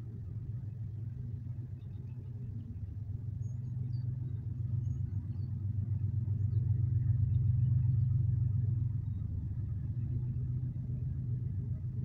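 A low, steady mechanical rumble like a running engine, swelling to its loudest a little past the middle and easing off again.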